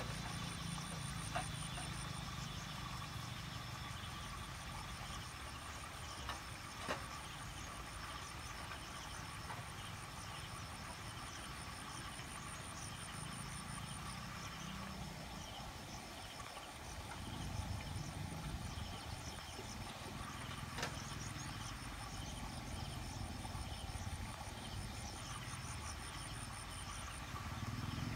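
Insects trilling in a fast, high pulsing chirp that breaks off and restarts twice, over a low steady rumble and a few faint clicks.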